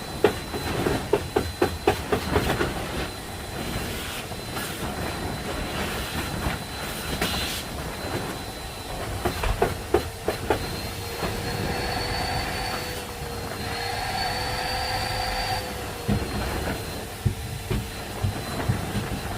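Mechanical rumbling with a run of sharp clacks at the start and again about ten seconds in. A steady whine runs through it and rises slightly in pitch in the middle before settling back.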